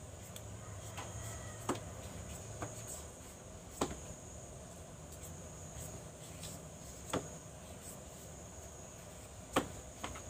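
Kitchen knife peeling and cutting a young green papaya, giving a few sharp clicks every two to three seconds. A steady high-pitched insect drone runs underneath.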